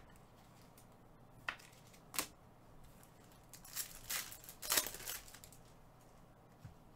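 Foil trading-card pack wrappers crinkling and tearing as the packs are handled and opened by hand: two sharp crinkles about a second and a half and two seconds in, then a longer run of crinkling around four to five seconds.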